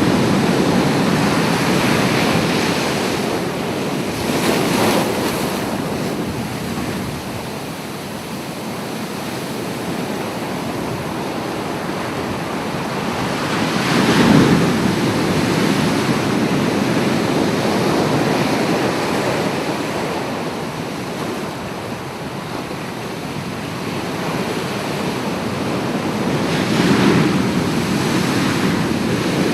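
Ocean surf: a steady rush of waves, with three louder waves swelling and breaking roughly ten to thirteen seconds apart.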